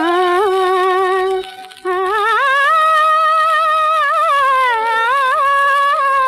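Hindi film song playing from an old 78 rpm record: a single sustained melody line with wavering ornaments and a brief break about a second and a half in, with no sung words.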